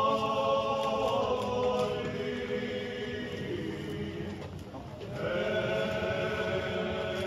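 A group of voices chanting in slow, long held notes, like a choir; the singing thins out about four seconds in and a new phrase begins about five seconds in.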